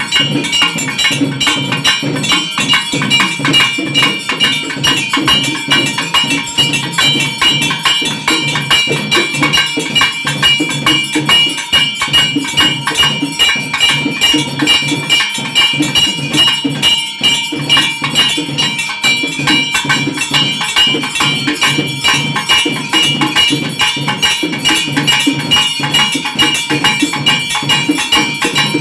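Loud, fast and unbroken ritual percussion at a Tamil temple festival: drums beaten rapidly, with a continuous ringing of metal bells or cymbals over them.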